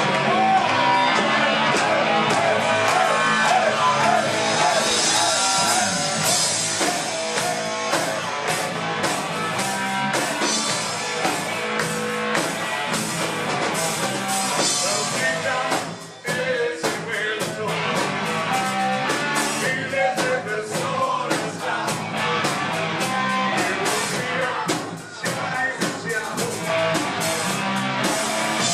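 Rock band playing live, with electric guitar and drums, and brief drops in the sound about sixteen and twenty-five seconds in.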